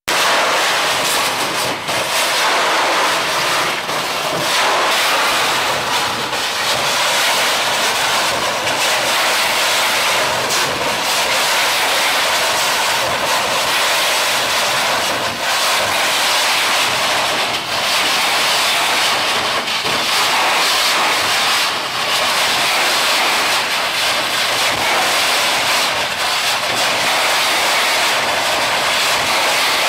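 Hydrodemolition robot's high-pressure water jet blasting concrete: a loud, steady hissing rush, with brief dips every couple of seconds.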